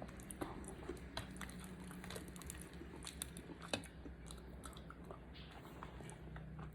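Close-up chewing and biting of fried chicken, with irregular crisp crunches and small mouth clicks.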